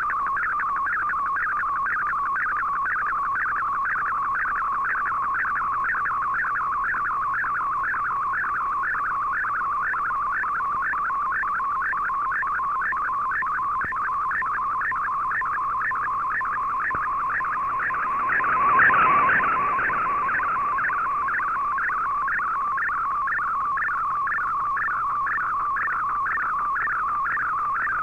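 Shortwave digital picture transmission (Fldigi MFSK picture mode) from a shortwave receiver: a high warbling data tone sweeping up and down in a fast, even, repeating pattern as the image is sent line by line. About two-thirds of the way through, a brief surge of noise rises over it.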